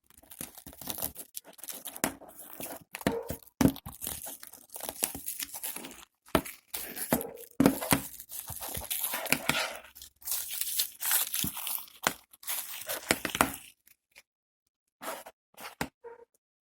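Plastic wrapping being torn and peeled off a Blu-ray case, with crinkling and sharp clicks of the case being handled. It stops about three-quarters of the way through, and a few light clicks follow near the end.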